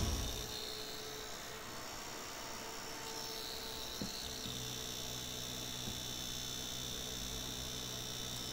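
Brushless DC computer fan running with a faint steady hum and whine. A light knock comes about four seconds in, after which a deeper hum joins.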